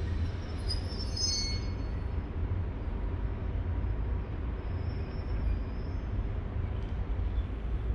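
Polish EN57 electric multiple unit approaching a station: a steady low rumble, with brief high-pitched squealing about a second in and fainter squeals again around five seconds in.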